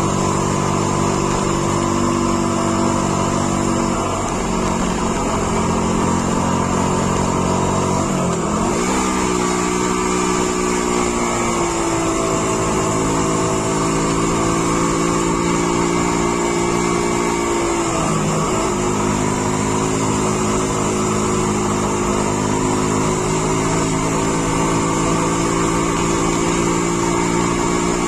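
Engine of the vehicle being driven, running steadily under load on a climb. Its pitch drops briefly and picks back up at gear changes about eight and eighteen seconds in.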